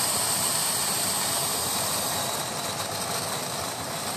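Steam hissing steadily from an open valve nozzle on a steam car-wash boiler, easing slightly a little over halfway through.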